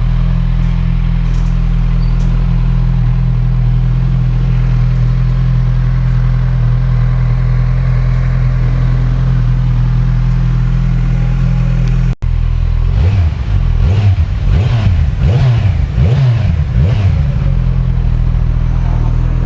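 Kawasaki Z1000R's inline-four engine on its stock exhaust, idling steadily. After a momentary dropout about twelve seconds in, it is revved in a series of quick blips and then settles back to idle.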